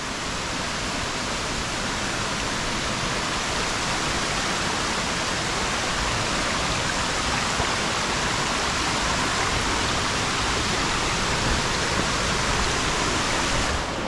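Small mountain waterfall and the rocky stream below it: a steady hiss of falling and running water that grows slightly louder as it goes on.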